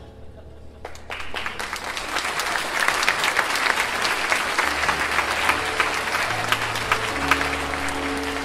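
Theatre audience applauding, the clapping starting about a second in and then holding strong.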